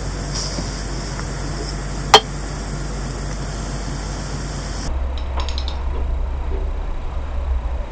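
Steady low hum and hiss of background noise, with one sharp click about two seconds in; the hum changes abruptly about five seconds in.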